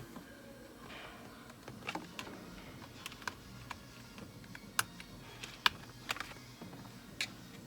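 Scattered sharp clicks and taps of plastic parts being handled and unclipped, about a dozen of them at irregular intervals, the loudest near the middle.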